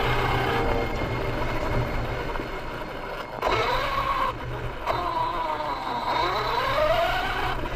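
RC off-road truck's motor whining as it drives, the pitch falling and rising again several times with the throttle, over the rumble and hiss of its tyres on the ground.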